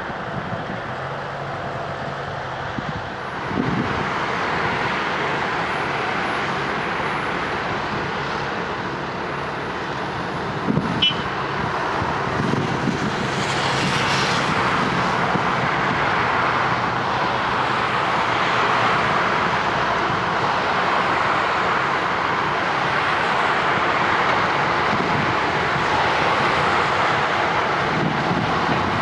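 Heavy road-paving machinery running: a steady, dense diesel engine drone, with a brief sharp click about eleven seconds in and a short hissing swell soon after.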